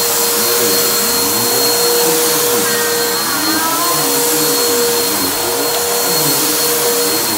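Bissell upright vacuum cleaner running on a rug, a steady motor noise with a constant whine.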